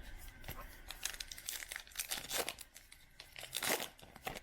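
Crinkly rustling and brief scraping of baseball cards and their packaging being handled and shuffled, in a series of short crackles.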